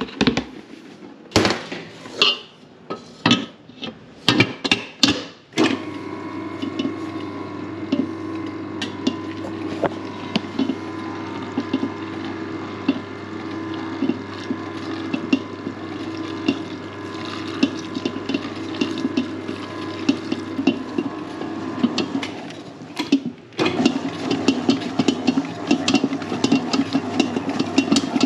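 Clattering knocks as flour is tipped into a steel mixer bowl. Then a commercial planetary mixer with a dough hook starts and runs with a steady hum while water is poured in. About 23 seconds in it cuts out briefly and restarts louder as it mixes the dough.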